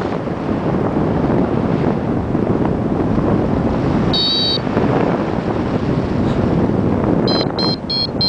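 Strong wind buffeting the microphone in a steady loud rush. A single short high electronic beep sounds about four seconds in, and a quick run of short high beeps, about three a second, begins near the end.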